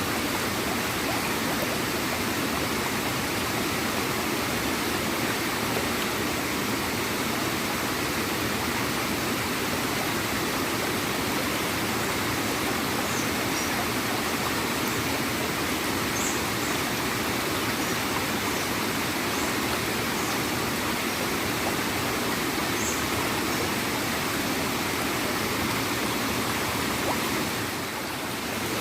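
Water of a small waterfall and stream flowing and gurgling steadily.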